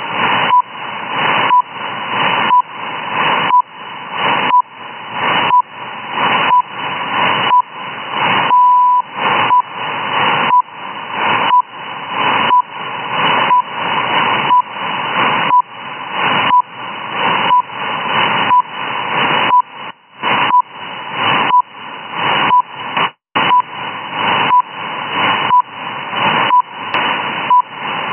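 Shortwave radio receiving the RWM time signal station: short 1 kHz beeps once a second over a steady hiss of static, with one longer beep about nine seconds in marking the minute. The hiss swells between beeps, and the signal drops out for a moment about 23 seconds in.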